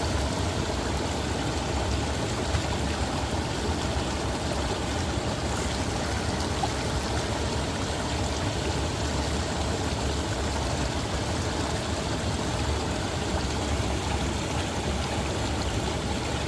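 Mountain stream water flowing over rocks in a steady, unbroken rush.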